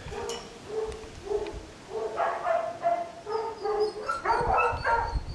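Daxipoo puppies yapping: a run of short, high-pitched barks, about two a second, getting louder near the end.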